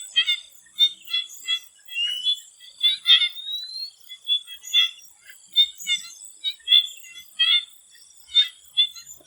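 Swamp frogs calling in short, repeated notes, about two to three a second, over a steady high insect drone. Two brief rising whistles come about two and three seconds in.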